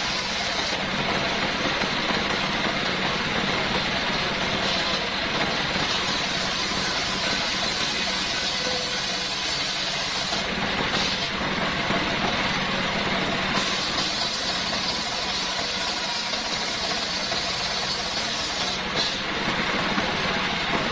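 Home-built circular saw bench, belt-driven by a stationary engine, running steadily while the blade rips a coconut-wood plank. The high cutting hiss dips briefly a few times over the steady engine hum.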